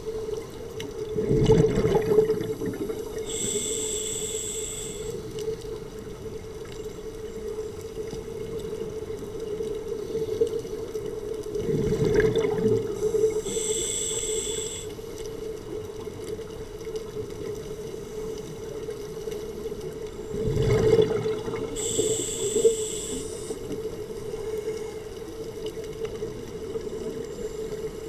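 Scuba regulator breathing underwater, three breaths about ten seconds apart. Each is a low rumbling gurgle of exhaled bubbles followed by a hissing inhale through the regulator, over a steady hum.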